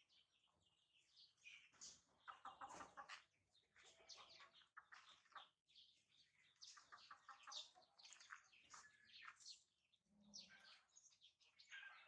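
Faint animal calls: many short, high-pitched chirping notes coming in quick clusters, with a few lower pitched calls among them.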